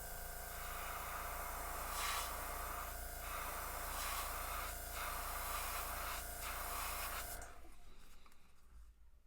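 Airbrush spraying paint in a steady hiss that swells and dips as the trigger is worked, over the steady hum of the air compressor running. Both stop about seven and a half seconds in.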